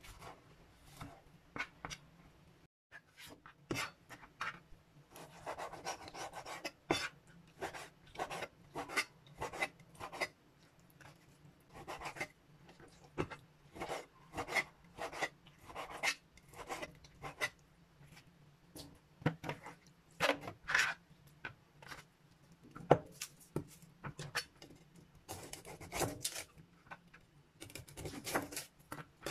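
A large kitchen knife cutting on a plastic cutting board, slicing tomatoes and then cutting raw meat and garlic. It makes irregular sharp knocks of the blade on the board, mixed with scraping and rubbing.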